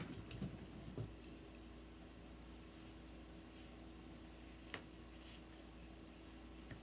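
Faint rustling of cloth and a couple of small clicks as a folding knife is clipped into a trouser pocket, over quiet room tone with a low steady hum. The clicks come about a second in and again near five seconds.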